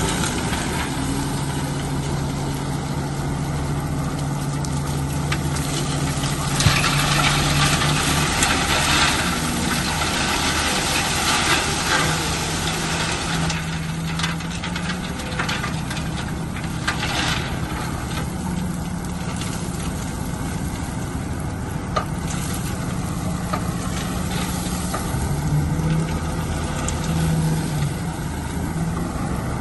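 Bulldozer's diesel engine running with a steady low drone that shifts up and down in pitch, with stretches of louder noisy clatter about a quarter and about halfway through, and a few sharp knocks.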